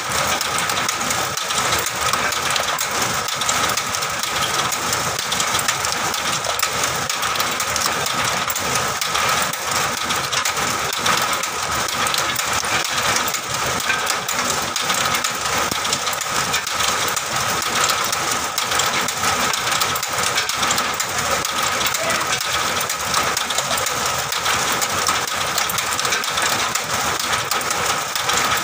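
Cashew processing machine running steadily, with a steady whine and a dense, continuous rattle of split cashew shells and kernels.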